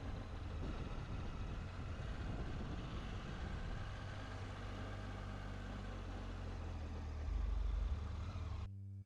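Triumph Tiger 800 XC motorcycle's three-cylinder engine running steadily with a dense rushing noise over it. It grows louder about seven seconds in, then cuts off abruptly shortly before the end.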